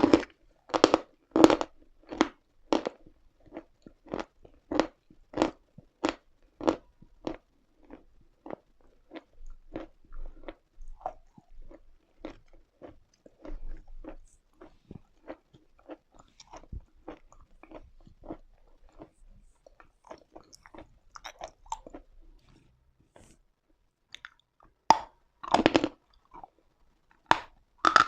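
A person biting and chewing lumps of chalk close to the microphone: a steady run of crisp crunches, about two a second and loud at first, easing into softer chewing, then a loud fresh bite and more crunching near the end.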